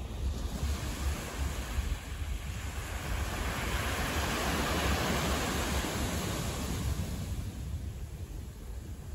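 Outdoor city street ambience with a steady low wind rumble on the microphone; a broad rushing noise swells to a peak about halfway through and fades again.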